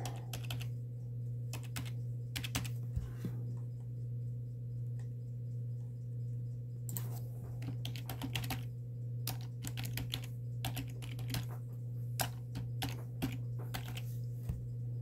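Typing on a computer keyboard: irregular runs of key clicks, over a steady low hum.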